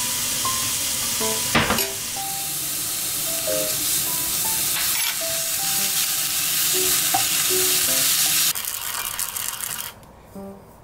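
Finely diced vegetables sizzling in a hot frying pan while being stirred with a spatula, with a single knock about one and a half seconds in. The sizzling weakens and stops near the end.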